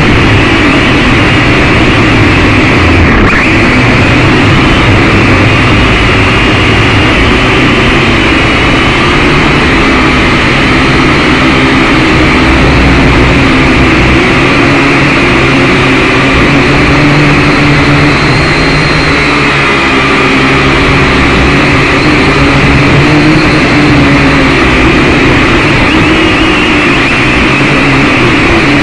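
Syma X5C quadcopter's small electric motors and propellers whining steadily in flight, the pitch drifting slightly up and down as the throttle changes.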